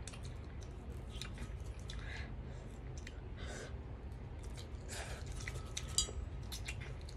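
A child eating instant noodles with chopsticks: chewing and slurping, with short mouth noises and a few sharp clicks, the loudest click near the end.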